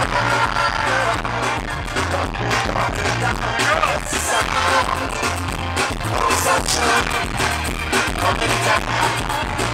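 An amplified live band playing through the stage PA, with a steady beat and a bass line that moves between low notes.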